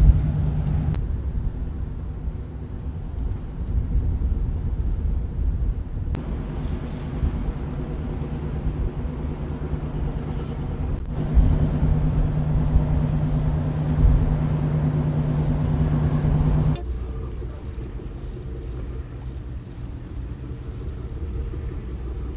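Low, steady engine rumble of a vessel under way at sea, with a deeper hum that drops out about a second in, returns about halfway through and stops again near the end as the footage changes.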